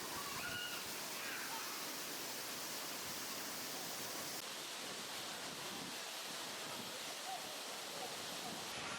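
Waterfall: a steady even rush of falling water, with faint voices in the background. The sound changes slightly in character about four seconds in.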